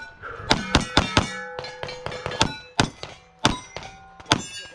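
Pistol shots fired in a string, about eight in all, many of them followed by the ring of a struck steel plate.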